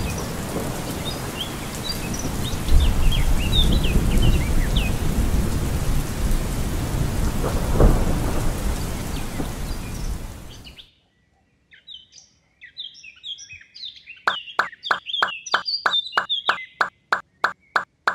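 Steady rain with low thunder rumbles and bird chirps, cutting off abruptly about eleven seconds in. After a brief silence, birds chirp over a run of short, evenly spaced knocks, about three a second.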